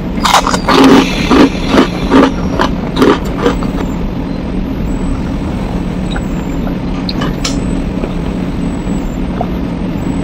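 Close-up mouth sounds of chewing a quail egg: a quick run of loud, sharp chews over the first three or four seconds. After that only a steady low hum remains, with a few faint clicks while she sips from a metal mug.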